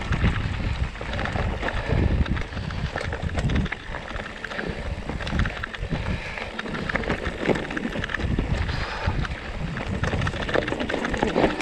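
Mountain bike being ridden over a rough trail: tyres rolling and crunching, the bike rattling with rapid irregular clicks and knocks, and wind buffeting the microphone in low gusts.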